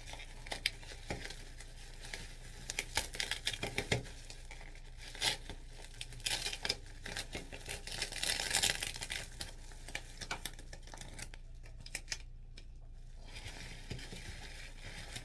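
Bubble wrap and plastic packaging being unwrapped and handled: crinkling and tearing with many sharp little clicks, briefly going quiet near the end.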